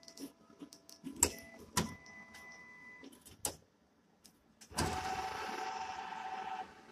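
NCR ATM's cash-in banknote module recognising and counting inserted notes: a few sharp clicks, then a steady motor whirr of about two seconds starting past the middle.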